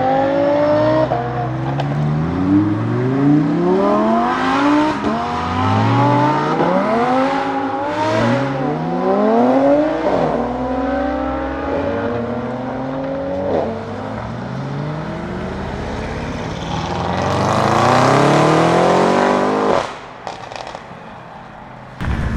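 Audi RS7 C8's twin-turbo V8, breathing through an Akrapovic cat-back exhaust, accelerating hard. Its pitch climbs and drops back with quick upshifts every second or two. Near the end comes one longer, louder climb that cuts off suddenly.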